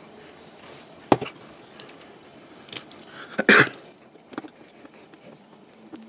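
Clicks and knocks of a screwdriver and small metal parts being handled while a heatsink is screwed onto a circuit board: a sharp click about a second in, a louder knock about three and a half seconds in, and a few faint ticks between.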